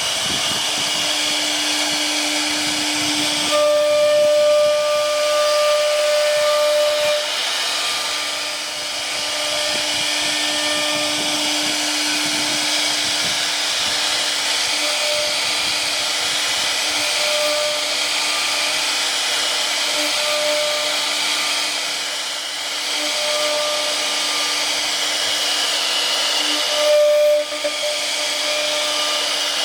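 CNC machine running and cutting: a steady hiss with a whining spindle tone that fades in and out at a fixed pitch, briefly louder a few seconds in and again near the end.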